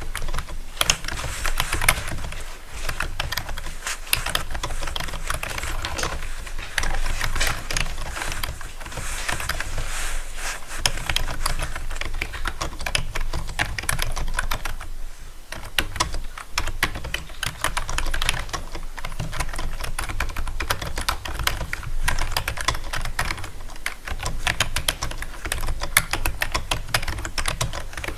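Fast, irregular clicking of keys being typed on a keyboard, with a brief pause about halfway through, over a steady low hum.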